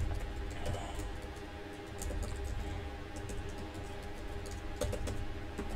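Typing on a computer keyboard: scattered, light keystroke clicks over a low, steady background hum.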